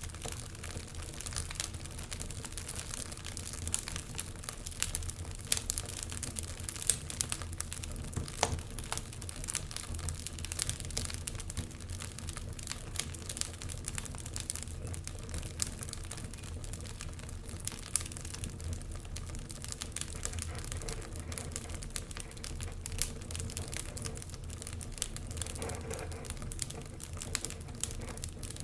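Wood fire crackling in a fireplace: a steady hiss of burning with frequent irregular sharp pops and snaps.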